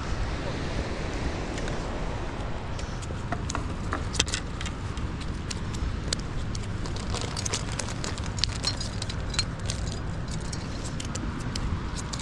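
Steady low rush of water pouring from the dam, with wind on the microphone. From about three seconds in, scattered light clicks and taps as a small landed fish and a jig are handled on bare rock.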